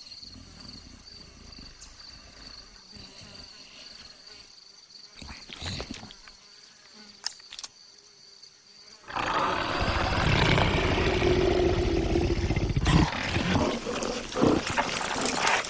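A steady high insect drone for the first several seconds. Then, about nine seconds in, a leopard starts growling loudly and keeps on to the end.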